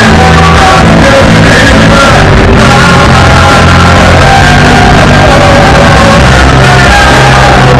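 Loud live worship music from a small church band with electric guitar and keyboard, with voices singing and shouting over it.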